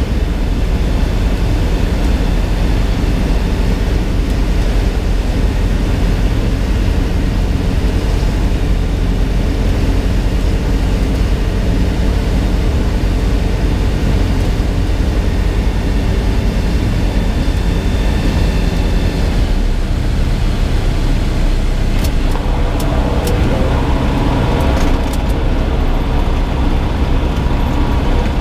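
Light single-engine propeller aircraft's engine and propeller running at low power over a steady rush of noise as it lands and rolls out on the runway. Near the end come a few sharp clicks and rattles.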